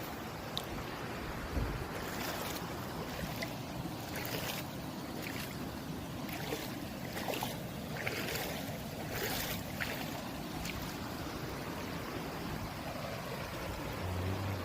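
Mountain stream babbling over rocks, a steady rush of water with brief splashes now and then.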